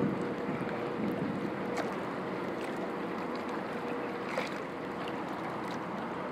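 Small lake waves lapping and sloshing against the shore in a light breeze, with small splashes. A faint steady hum runs underneath and fades out about four seconds in.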